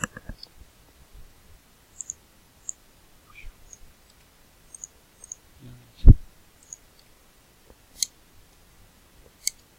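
Scattered single clicks of a computer mouse, a second or so apart, with one low thump about six seconds in.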